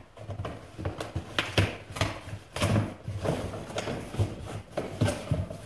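A cardboard shipping box being opened by hand: irregular rustling and scraping of the flaps and cardboard, with a few sharper knocks.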